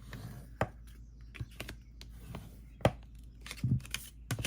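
Folded cardstock being handled on a work table: a few scattered light taps and clicks, the sharpest about half a second, three and four seconds in, with a duller knock in between.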